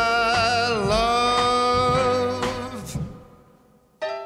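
Swing band music ending on a long held final chord, which fades out about three seconds in. A new short tone begins sharply near the end.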